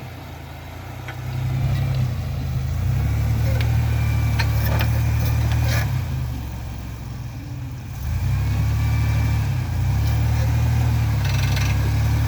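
Chevy Astro van's 4.3 L V6 engine pulling under load off-road, rising to a loud run about a second in, easing off around six seconds and pulling hard again about two seconds later.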